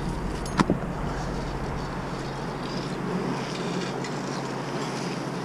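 Steady low rumble of the boom truck's engine running, with two sharp knocks about half a second in.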